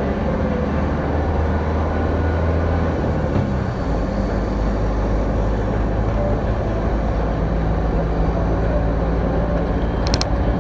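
Truck engine and road noise heard from inside the cab: a steady drone whose engine note shifts about three to four seconds in. A few light clicks come near the end.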